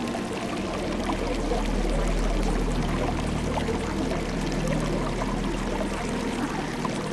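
Steady rushing of running water, over low held drone tones that shift pitch about a second and a half in and again near the end.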